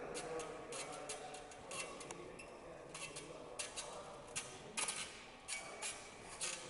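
Horizontal bar clicking and ticking irregularly, a few sharp clicks a second, as a gymnast moves and swings on it.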